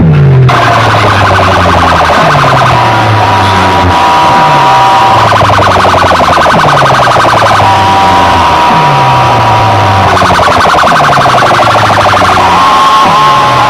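Very loud DJ sound-system music played as an electronic track. A rapidly pulsing siren-like tone runs through it, and a deep falling bass sweep repeats about once a second.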